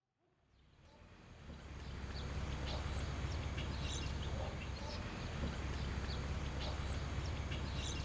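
Outdoor ambience fading in over the first two seconds: birds chirping in short, high calls over a steady low rumble.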